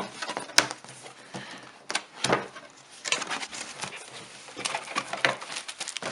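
Cardboard box and its packing being handled and opened: a sharp click about half a second in, a couple of knocks near the two-second mark, then irregular rustling and scraping.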